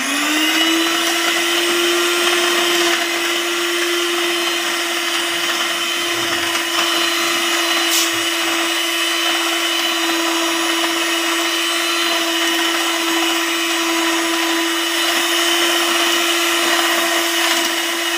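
Electric hand mixer running at one steady speed, its twin beaters whisking a thin cream-and-milk mixture in a bowl. The motor whine rises to pitch right at the start, then holds even throughout.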